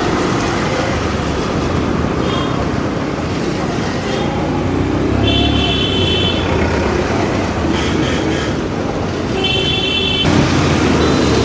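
Busy city street traffic heard from a moving motorbike: steady engine and road noise, with vehicle horns honking several times, the two longest about five and nine seconds in.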